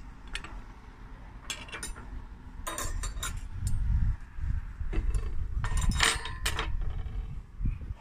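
Metal cutlery clinking against china plates and the table as a spoon and fork are handled, in several short clusters of clinks, over a low rumble.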